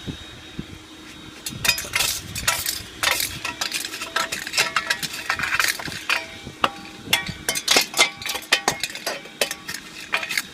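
Empty aluminum cans clinking and rattling as they are fed into the crucible of a coal-fired melting furnace. It is a quick, irregular run of light metallic clinks that begins about a second and a half in.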